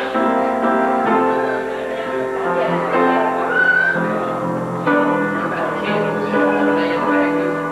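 Instrumental music: held chords and a melody moving from note to note at a steady pace.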